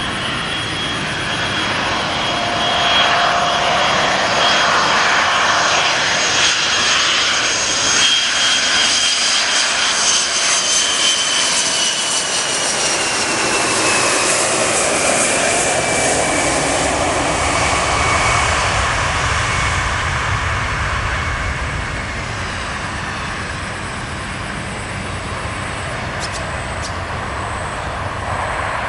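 Boeing 727 freighter's three Pratt & Whitney JT8D turbofans at approach power as the jet flies low past on landing approach. A high whine over a roar falls steadily in pitch as it goes by, leaving a deeper rumble as it descends toward the runway.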